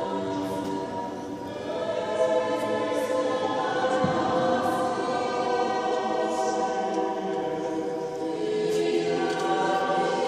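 Mixed choir of women's and men's voices singing sustained chords in a church, swelling louder about two seconds in and again near the end.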